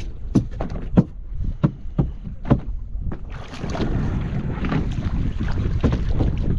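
Several sharp knocks on a small fishing boat in the first three seconds, then a steady rush of wind and sea water as a hooked fish is hauled splashing along the surface on a hand line.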